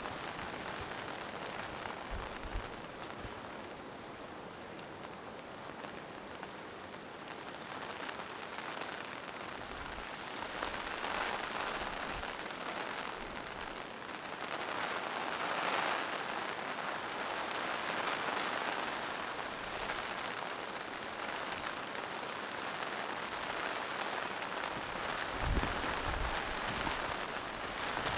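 Steady rain falling in a forest, an even hiss of drops on leaves and rocks that swells and eases, loudest about halfway through. A few low thumps come near the end.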